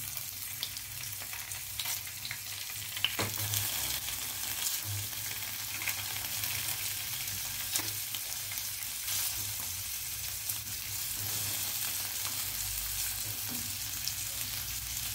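Paneer cubes shallow-frying in hot ghee in a nonstick pan: a steady high sizzle with a few sharp little pops and clicks as more cubes are set into the fat.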